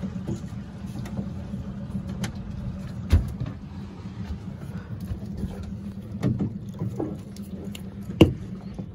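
A boat's engine idling steadily. Sharp knocks on the boat come about three seconds in and again, loudest, near the end, as a crab-pot rope is hauled in over the bow.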